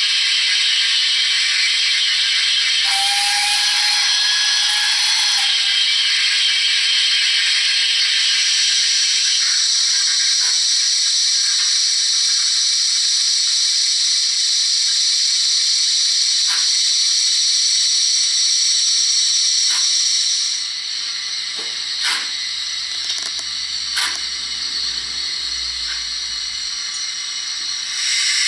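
Zimo MX648R sound decoder in a Hornby OO gauge GWR 28xx 2-8-0 model locomotive, playing stationary steam sounds through a small tender speaker: a loud steady steam hiss, with a short whistle about three seconds in. The hiss drops back about twenty seconds in, and a few sharp clicks follow.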